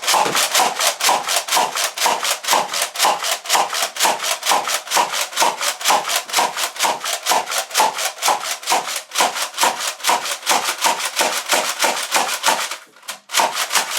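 Rhythmic scraping or shaking noise, about four short strokes a second, which stops abruptly near the end and then gives a few last strokes.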